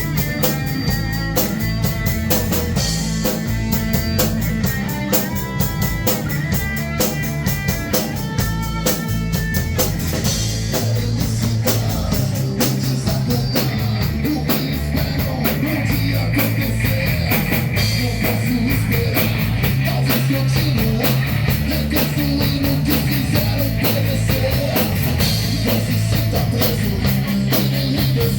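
Hard rock band playing live: drum kit, bass and electric guitars. For about the first ten seconds a guitar picks out a stepped melody over the drums and bass, then the band moves into a denser, heavier full-band section.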